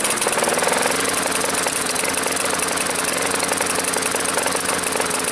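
Toro Personal Pace push mower's small engine running steadily after being pull-started, not sounding good: the owner blames the wrong carburetor fitted to it.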